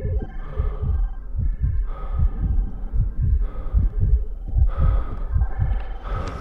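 Deep, heartbeat-like thumping, about two beats a second, under faint held tones.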